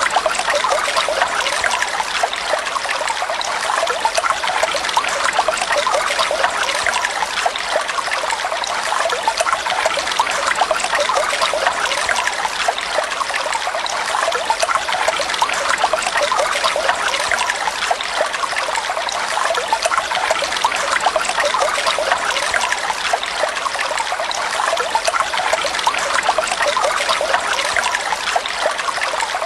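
Water flowing and trickling steadily, a continuous bubbling splash with no change in level.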